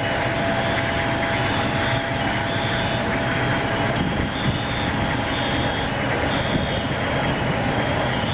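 Fire apparatus engines running steadily at the fireground, a loud even drone. From about halfway through, a high-pitched beep repeats roughly once a second.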